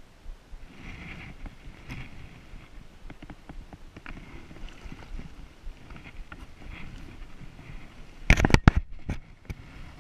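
A freshly caught brown trout is handled in a rubber landing net on the water, with faint drips and ticks. About eight seconds in there is a short burst of loud knocks and splashing close to the microphone as the fish is lifted out of the net.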